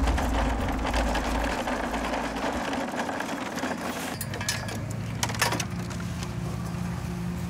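Blue plastic shopping cart rattling as it is pushed over pavement, its wheels and load of plastic poles clattering, with a couple of sharp knocks about four and a half and five and a half seconds in.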